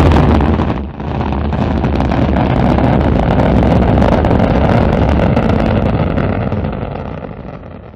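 Rocket engine firing sound effect: dense, low, steady thrust noise with a crackle on top. It starts suddenly, dips briefly about a second in, then holds steady and fades out near the end.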